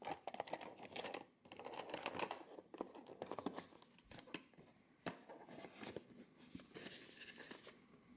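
Faint handling of a small vinyl toy figure and its packaging: scattered light clicks, taps and rustles, busiest in the first few seconds and thinning out after.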